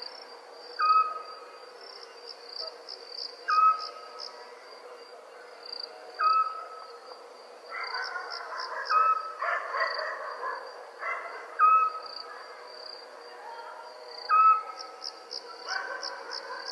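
Night insects chirring in a steady high trill with pulsed bursts, under a short whistled call repeated about every two and a half seconds, the loudest sound. A rougher, rasping stretch joins in about eight seconds in and fades by eleven.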